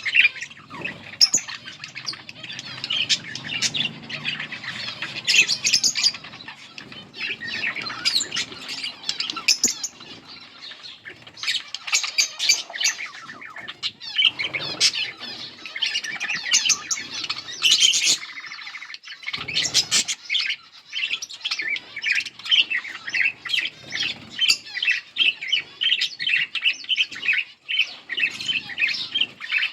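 A pair of budgerigars chirping and chattering continuously in rapid, dense warbles, with a short low noise about two-thirds of the way through.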